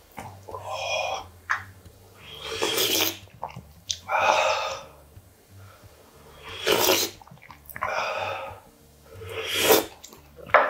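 Spicy Teumsae ramen broth slurped from a wooden spoon, with sharp, hissing breaths between sips as the man reacts to the heat. There are about six noisy bursts, each under a second long.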